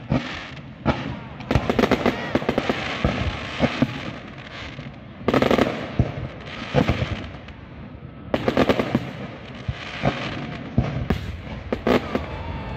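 Aerial fireworks display: shells bursting with loud bangs, several in quick clusters, over continuous crackling from the exploding stars.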